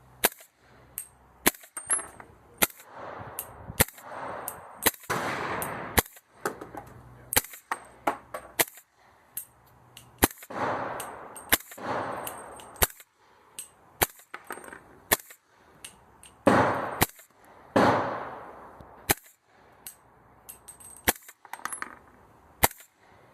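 Suppressed AR-15 in .300 Blackout firing subsonic rounds through a Rugged Obsidian 9 suppressor: many single shots at an uneven pace, each a sharp report with a metallic clank of the action, the loudest near the end.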